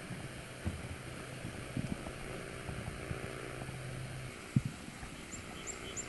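Quiet outdoor ambience: a faint steady hiss with a low hum that stops about four seconds in, a few soft knocks, and a small bird's quick high chirps near the end.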